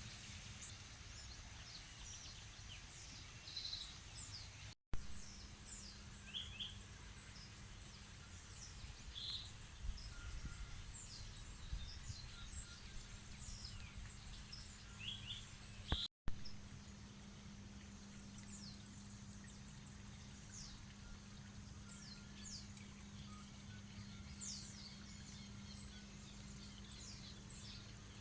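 Birds calling in a natural landscape: many short, high chirps and quick falling notes, over a steady low hum and faint background rumble. The sound cuts out completely for an instant twice, with a click, about 5 and 16 seconds in.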